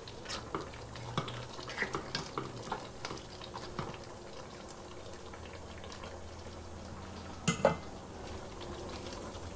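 A utensil stirring and clinking against a pot of simmering pork pochero, with scattered light clinks over the first few seconds, then a steady bubbling, and two sharper knocks about seven and a half seconds in.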